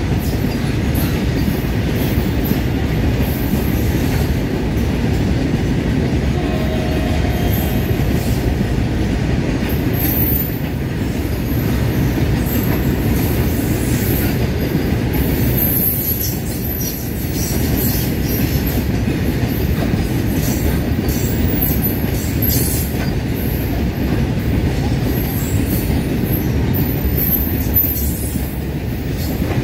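Freight train's hopper wagons rolling past at speed: a steady heavy rumble and clatter of wheels on rail, with high-pitched wheel squeals coming and going.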